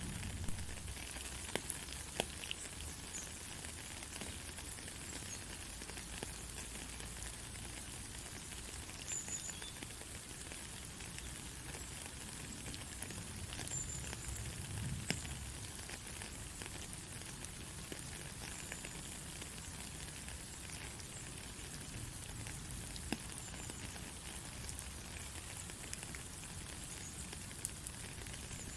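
Steady rain hiss with scattered sharp ticks of single drops, and a faint low rumble swelling briefly about halfway through.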